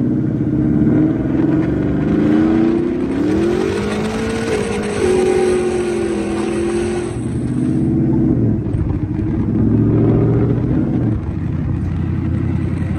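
Chevrolet Silverado pickup accelerating: the engine and exhaust note rises in pitch over a couple of seconds with a rush of wind and road noise, drops about seven seconds in as it lets off, then pulls up again more gently.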